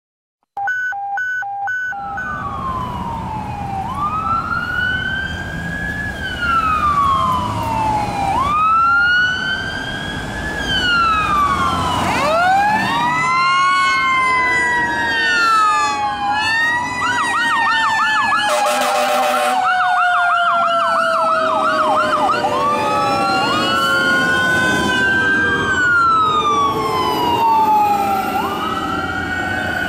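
Fire truck sirens: electronic wail sirens rising and falling every few seconds, joined about twelve seconds in by a Federal Q2B mechanical siren winding up, then slowly winding down. Near the middle there is a rapid yelp and an air horn blast of over a second, over the low rumble of the trucks' engines and traffic.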